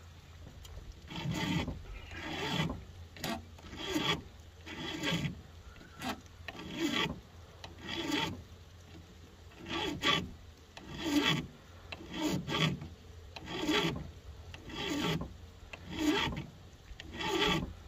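Flat file rasping across a chainsaw chain's rakers (depth gauges) through a depth-gauge tool, in an even series of about fourteen strokes a little over a second apart. The rakers are being taken down because they had been left too high.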